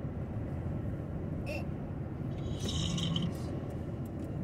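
Steady low road rumble of a vehicle travelling on a highway, with a short higher-pitched sound about a second and a half in and another, longer one near three seconds.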